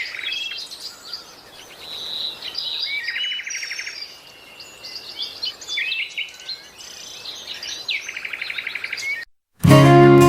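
Several songbirds chirping and singing, including two fast trills of rapidly repeated notes. The birdsong cuts off after about nine seconds, and loud acoustic guitar music begins just before the end.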